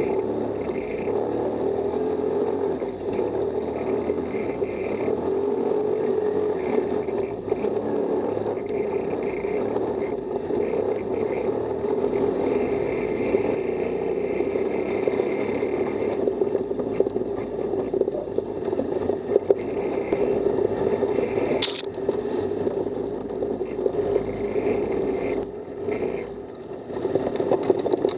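Off-road buggy driving on a rough dirt track: a steady engine drone with scraping and rattling from the ride over the uneven ground, and one sharp knock about three-quarters of the way through.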